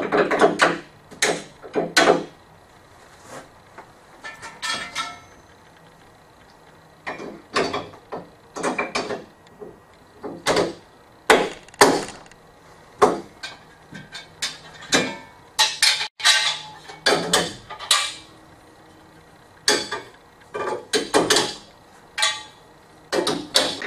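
Metal hang bars being hooked onto a wood-panelled display rack: a string of irregular sharp knocks and clacks, some with a short metallic ring, with a few pauses between.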